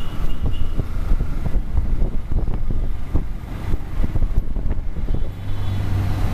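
Motorcycle engine running at low speed in traffic, with wind buffeting the tank-mounted camera's microphone. A steady low hum comes in near the end as the bike slows.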